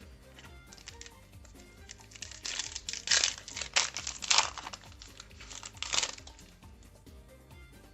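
Foil booster pack wrapper crinkling as it is handled, a few seconds of loud crackling in the middle, over quiet background music.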